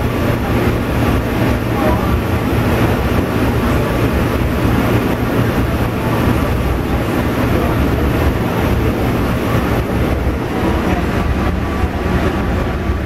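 Steady rumble of a passenger train running along the track, heard from inside one of its coaches.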